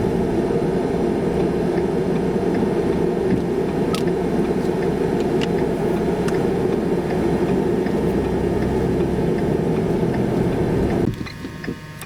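Steady road and engine noise inside a moving car, a dense low rumble, which cuts off suddenly near the end.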